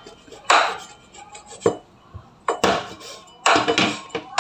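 Steel meat cleaver chopping the feet off a raw chicken on a wooden cutting board: several hard chops about a second apart, the last two close together.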